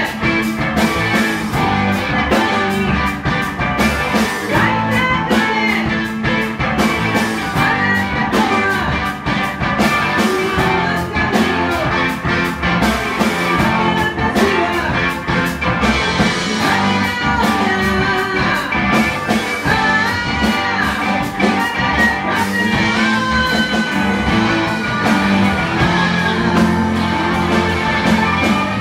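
A rock band playing live: a woman singing over electric guitar, electric bass and a Tama drum kit.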